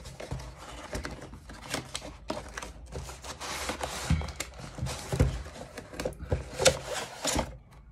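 Cardboard packaging being handled: rustling and scraping as a cardboard inner tray slides out of a printed cardboard sleeve, with scattered taps and clicks, the sharpest a little before the end.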